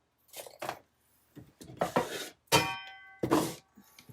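Craft tools and paper being handled on a desk: a few short knocks and scrapes, and a little over halfway through a small metal tool is set down with a brief clink that rings for about half a second.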